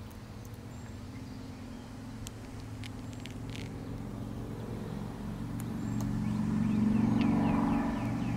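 A motor vehicle passing by: a low engine hum that swells to its loudest about seven seconds in, then eases off. A few faint clicks, and near the end a quick run of short high chirps.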